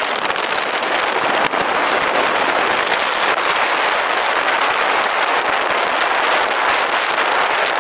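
A motorcycle at riding speed, heard as a steady rush of wind over the microphone with the engine and road noise blended into it. There is a short click about a second and a half in.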